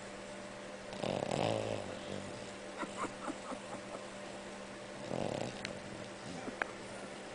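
Snoring: two long snores about four seconds apart, with small clicking sounds between and after them.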